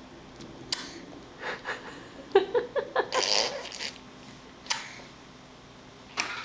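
A baby smacking his lips and mouthing a mouthful of tart applesauce: scattered wet smacks and clicks, with a quick run of them a little past two seconds in and a brief sputtery puff of breath just after.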